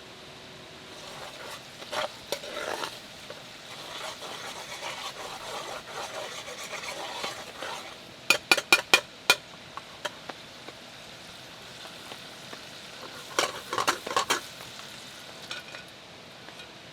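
Cooking in a pan: a utensil stirring and scraping food that sizzles, then a quick run of about six sharp taps on the pan just after the middle, and another cluster of clanks near the end.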